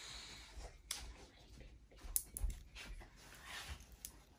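Faint rustle and crinkle of protective plastic film being peeled off a new AirPods charging case by hand, with a few sharp plastic clicks, about a second in and just after two seconds.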